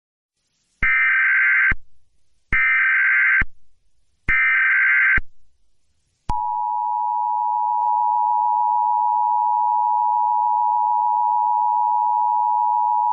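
Emergency Alert System tones: three short bursts of SAME header data about a second apart, then the steady two-tone EAS attention signal, which begins about six seconds in.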